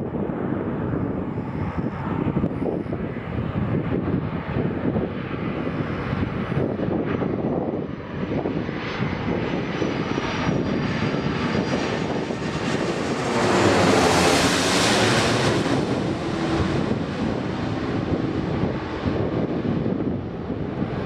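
Twin-engine Airbus A330-300 airliner on final approach with gear down, passing low overhead: steady jet engine noise that swells to its loudest about 13 to 16 seconds in, with a sweeping whoosh as it goes over, then eases off as it flies away.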